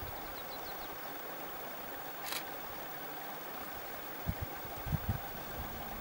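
Steady outdoor background noise, with a few faint high chirps within the first second, one sharp click a little after two seconds in, and a few low thumps near the end.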